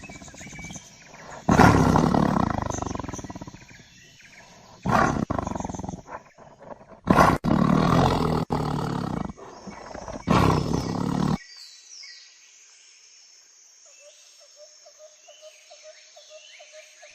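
A large wild animal roaring in four loud calls of one to two and a half seconds each, over a faint background of birds and insects chirping.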